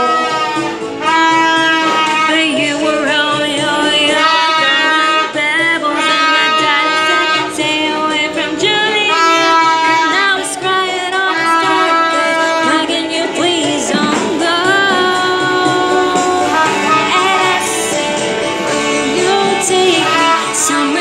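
A woman singing karaoke into a handheld karaoke microphone over a music backing track, with long held notes.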